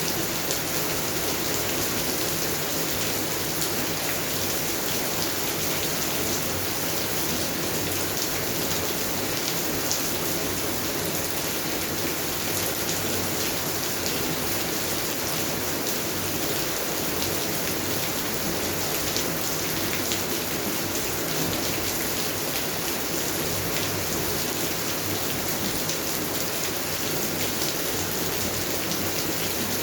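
Steady rain falling in a garden: an even hiss of rainfall with many faint ticks of individual drops.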